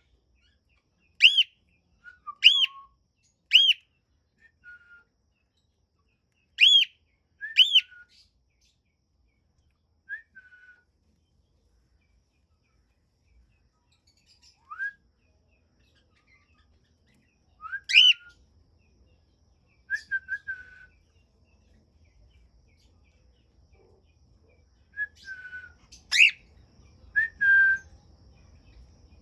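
Cockatiels calling: short, clear whistled contact calls that sweep up and back down, given one at a time in loose clusters with pauses between, a few in quick succession early on and again near the end.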